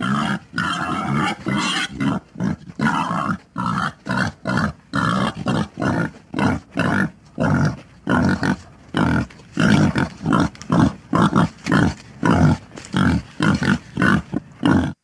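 A wild pig grunting over and over in a steady run, about three short grunts a second.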